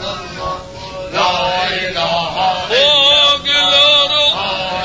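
Male voice chanting an Islamic tahlila (devotional chant on 'lā ilāha illā Allāh') in long, ornamented melismatic phrases with vibrato. It comes in softer at first and swells to its loudest held phrase past the middle, then eases back near the end.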